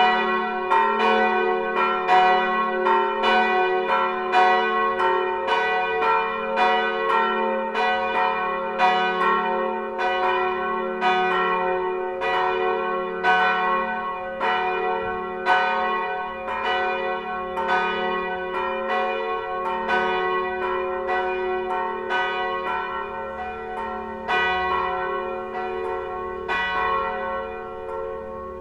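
Church bells of a brick church tower swinging and ringing together in a peal, with the bells tuned to F-sharp and A-sharp among them. Their strikes overlap at nearly two a second over a constant hum of ringing tones.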